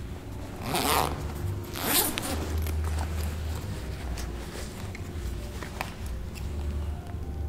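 Two quick rasping strokes about a second apart, over a low steady hum.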